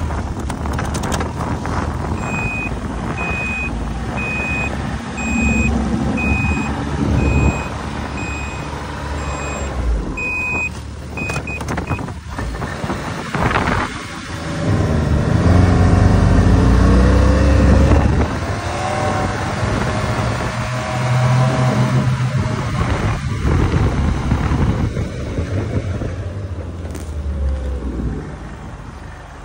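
Snowmobile engine running as the machine pulls away and rides over snow, louder and rising in pitch from about 15 to 18 seconds in. A high beep repeats about one and a half times a second through the first ten seconds or so.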